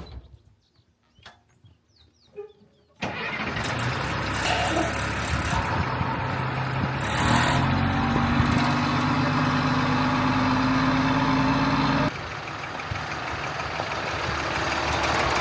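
Diesel engine of an ex-military LMTV truck running steadily. It comes in suddenly after about three seconds of near quiet with a few faint clicks, and drops to a lower level near the end.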